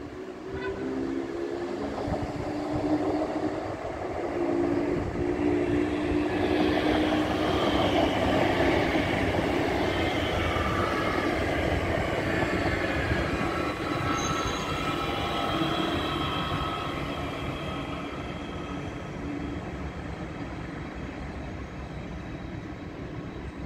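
Siemens Desiro class 460 electric multiple unit passing close by, a steady electric hum and the rush of its wheels on the rails. The sound grows louder as it approaches, peaks about a third of the way in, then slowly fades as it moves away.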